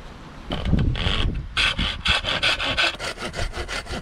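Husqvarna handsaw cutting through a birch spoon blank in fast, even strokes, about five a second, starting about half a second in.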